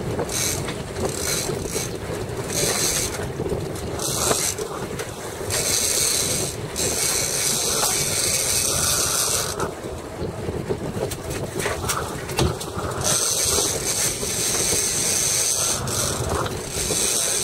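Big-game fishing reel whirring and ratcheting in repeated bursts of half a second to a few seconds, under load from a hooked giant bluefin tuna. Wind and boat noise run underneath.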